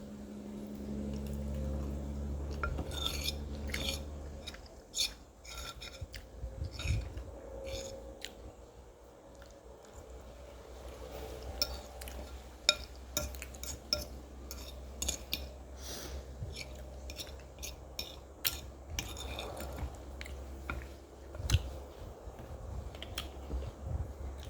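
Cutlery clinking and scraping against a plate during a meal, with many short sharp clicks and eating sounds between them. A low steady hum is heard in the first few seconds.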